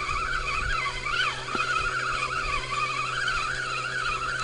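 Spinning reel being cranked steadily to wind in line with a fish on, its gears giving a continuous wavering whine that rises and falls in pitch as the handle turns.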